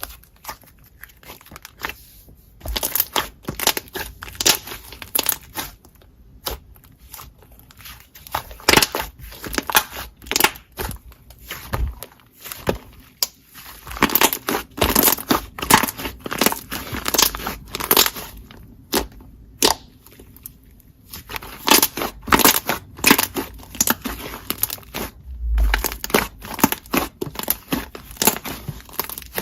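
Slime being pressed, poked and stretched by hand, giving dense irregular crunching, crackling and popping clicks that come in bunches.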